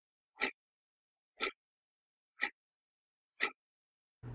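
Clock ticking once a second: four sharp, even ticks with dead silence between. A low steady hum comes in just at the end.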